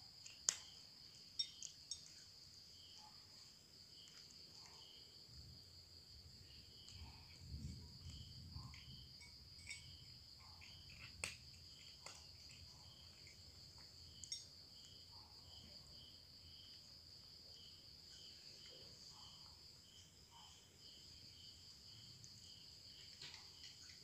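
Faint, steady chirping of crickets. A few sharp clicks come as a cat eats from a glass dish, its food and teeth striking the glass.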